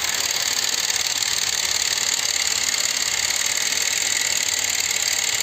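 A small motor-driven mechanism running steadily: a dense, even mechanical whir that holds the same pitch throughout.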